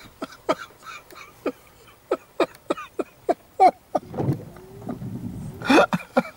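A man laughing in short breathy bursts, a few a second. About two-thirds of the way through there is a low rumble of the camera being handled, then another burst of laughter near the end.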